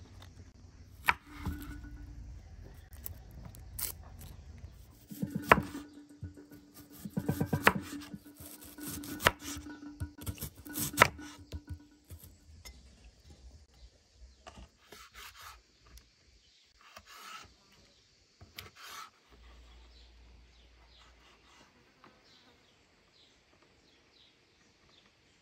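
Large kitchen knife cutting lettuce and onion on a wooden cutting board: crisp irregular cuts with the blade knocking on the board, heaviest in the first half, then lighter, quieter strokes.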